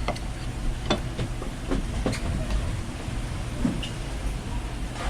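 Steady low background rumble with several sharp knocks and clacks scattered through it.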